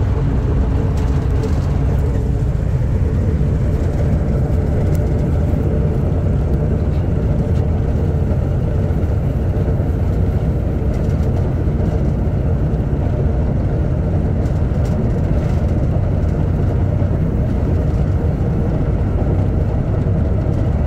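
Class 14 diesel-hydraulic locomotive's Paxman Ventura V6 diesel engine running steadily, heard from the cab as the locomotive moves slowly. It is a low, even engine sound with a steady higher tone over it.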